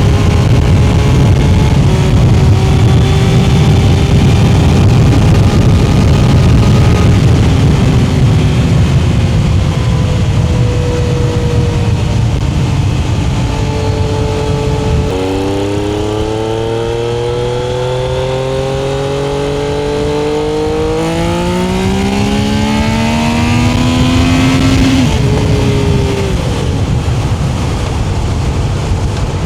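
A Triumph's engine running loud under way. Its note changes suddenly about halfway through, then climbs steadily in pitch as it accelerates, and drops sharply near the end, as at a gear change.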